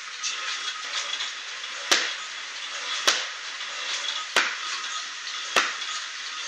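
Four sharp slaps, about a second apart, as a long strip of wool felt is swung overhead and slammed down onto a concrete floor, over a steady background hiss.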